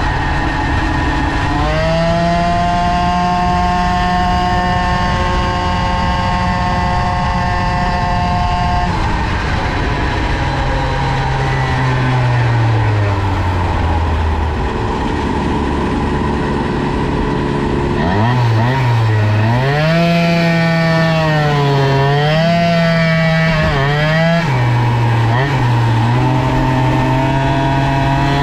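Two-stroke moped engine, tuned with a Polini 50W kit and a BOOST cylinder head, running flat out at a steady high pitch. About midway the revs fall away over several seconds. In the last third the revs rise and fall several times as the throttle is opened and closed.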